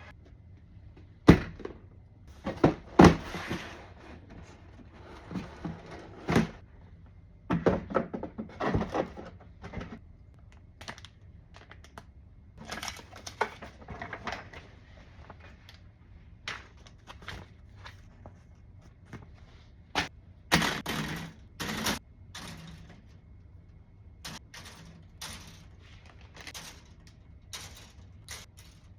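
A plastic model kit and its cardboard box and packaging being handled: irregular knocks, taps and thunks with short rustling bursts. The loudest knocks come about a second in and about three seconds in, and there is a run of rustling and knocks around twenty seconds in.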